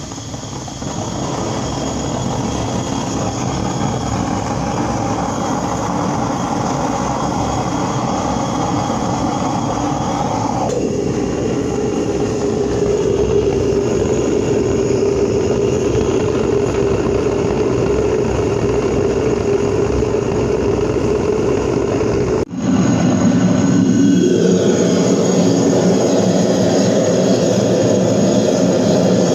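Gas melting furnace burner running with a steady, loud rush of flame and air. Its tone changes about a third of the way through, and after a brief break about three-quarters through it comes back lower and louder.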